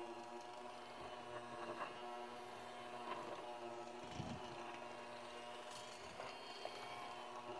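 Electric hand mixer running steadily, its beaters whipping cream cheese and sugar in a glass bowl, with a few light knocks along the way.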